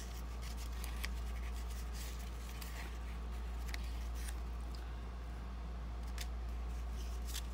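Sheets of thick, crinkle-textured cardstock being shuffled and slid against each other by hand: scattered soft rustles and a few crisp paper clicks, over a steady low hum.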